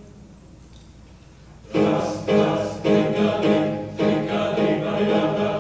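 Men's choir of teenage boys beginning to sing in harmony after a short hush, coming in about two seconds in with a sharp, rhythmic attack on each phrase.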